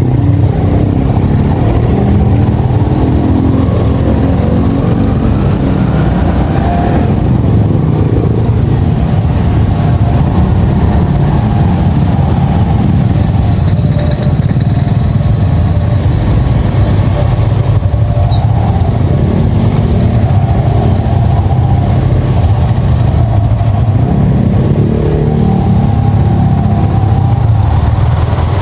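Yamaha XSR155's single-cylinder four-stroke engine running under way. Its pitch rises as it accelerates about five seconds in, then rises and falls with road speed through the rest.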